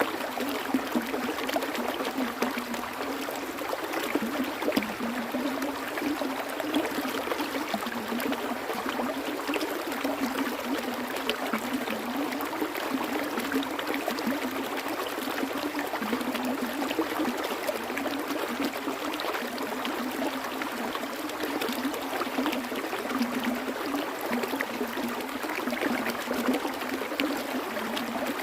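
Water flowing and trickling steadily over rocks in a stream, with lots of small splashes and gurgles.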